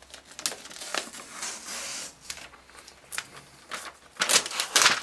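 Clear protective plastic film being peeled off the aluminium underside of a new MacBook Air. It makes a hiss as the film lifts, with scattered crackles, then loud crinkling and crackling near the end.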